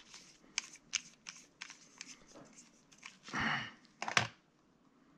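Hands handling small parts on a wooden board: a run of light clicks and taps, with a longer rustle a little over three seconds in and a sharper scrape just after.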